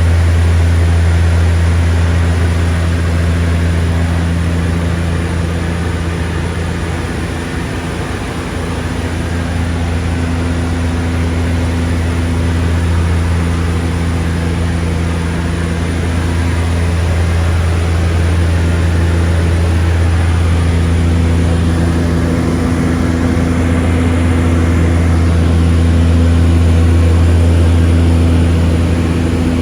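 Seaplane propeller engines droning steadily in flight: a loud, deep, even hum with a slight dip about eight seconds in.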